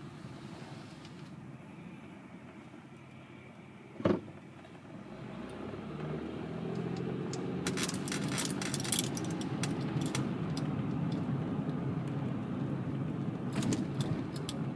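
Inside a moving car: a single thump about four seconds in, then engine and road noise building steadily as the car gets under way, with light rattles and jingles of loose keys or trim.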